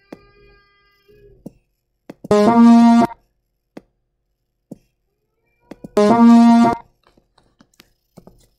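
Two loud, brass-like honks from a cartoon's soundtrack, each a little under a second and held at a steady pitch, about three and a half seconds apart. A few small clicks come between them.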